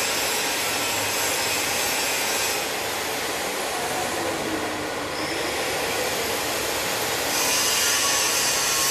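Steady rasping workshop machinery noise, a continuous hiss that softens in the highs a few seconds in and comes back stronger near the end.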